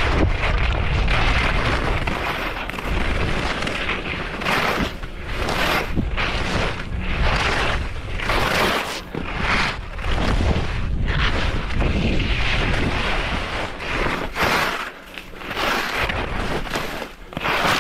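Skis scraping over hard, bumpy snow in a series of short turns, with a surge of scraping at each turn, over wind rumbling on the microphone.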